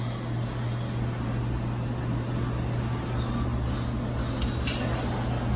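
A steady low mechanical hum, with two short light clicks close together a little after four seconds in.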